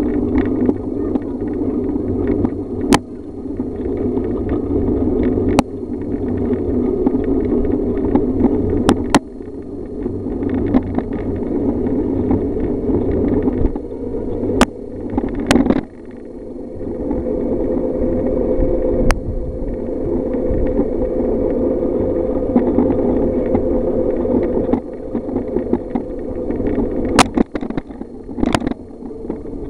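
Bicycle and Weehoo trailer bike rolling over a gravel road: steady rumble of tyres and frame, with occasional sharp knocks from bumps.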